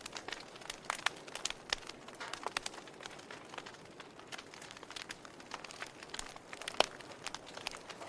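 Wood fire crackling in a fireplace: irregular pops and snaps over a soft hiss, with one sharper pop about seven seconds in.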